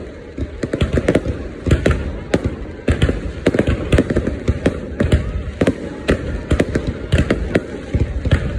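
Fireworks exploding in a dense, irregular barrage: several sharp bangs a second, overlapping over a continuous low rumble.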